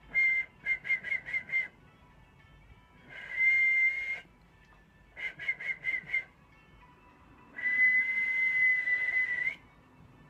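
A man whistling one steady high note in a pattern: a short note, then five quick toots, a held note of about a second, five more quick toots, and a long held note of about two seconds that lifts slightly at its end.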